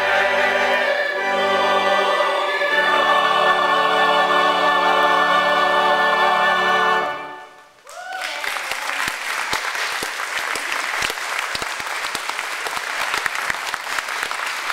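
Church choir singing the closing phrases of an anthem, ending on a long held chord that cuts off about seven seconds in. After a brief pause the congregation breaks into steady applause.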